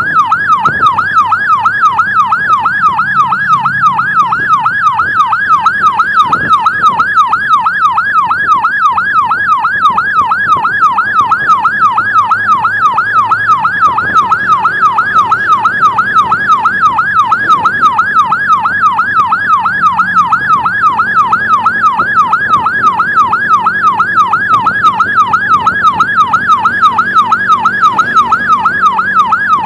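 Electronic emergency siren in a fast, steady yelp, its pitch sweeping rapidly up and down without a break, over the low drone of a vehicle engine.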